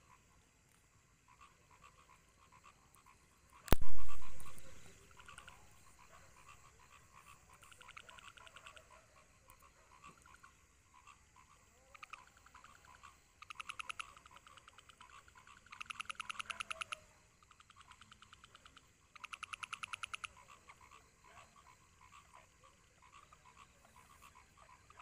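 Frogs calling in rapid pulsed trills over a faint background chorus. Three louder trills of about a second each come in the second half. A single sharp knock about four seconds in is the loudest sound.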